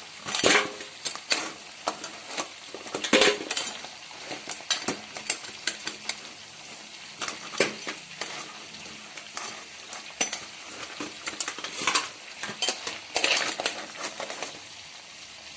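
Crabs frying in hot oil in a cooking pot, sizzling steadily, while a spoon repeatedly scrapes and clanks against the pot as the fried crabs are lifted out.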